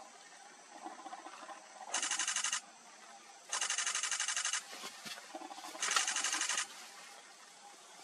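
Camera shutter firing in three rapid bursts of about ten clicks a second, each burst under a second long, about two, three and a half and six seconds in.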